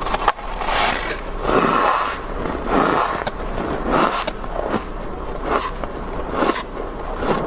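Metal ladle scraping thick frost off the inside walls of a freezer: a series of scraping strokes, about one a second, after a short sharp click at the very start.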